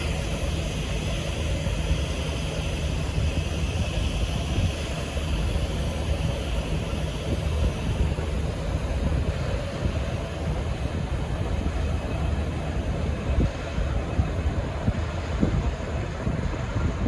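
V/Line N class diesel-electric locomotive idling at the platform: a steady low diesel rumble.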